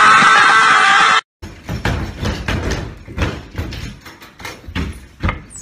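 A loud held yell that rises at first, then holds for about a second and is cut off abruptly. After a brief silence come about four seconds of irregular heavy thumps and knocks.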